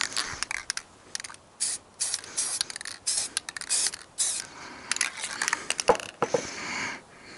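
Aerosol spray paint can hissing in a series of short bursts, with a few light knocks later on.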